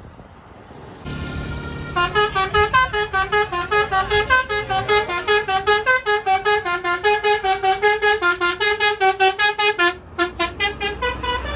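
Basuri telolet musical horn on a bus playing a fast tune of short notes stepping up and down in pitch, about four or five notes a second. A single held horn tone comes first, about a second in, and the tune breaks off briefly near the end.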